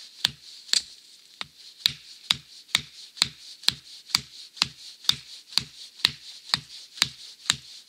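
The flat hammer poll of a Wetterlings Bushman axe striking the top of a wooden stake, driving it into the ground: a steady series of sharp knocks, about two a second.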